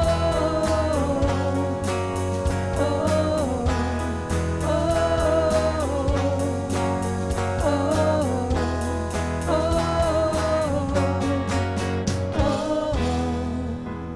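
Worship band music: a singer holding long wordless 'oh' notes over guitar and a steady beat. The beat drops away near the end, leaving a soft keyboard.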